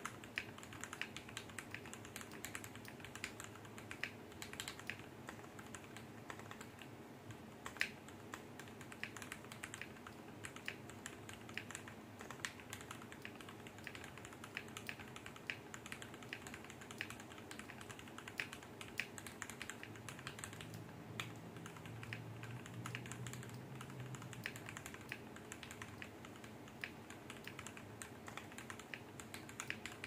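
Continuous fast typing on a 60% custom mechanical keyboard: lubed JWK (Jwick) Yellow linear switches on a brass plate in a Kbdfans anodized aluminium case, with Cherry-profile keycaps. A dense, steady run of keystroke clacks, with one stroke about eight seconds in louder than the rest.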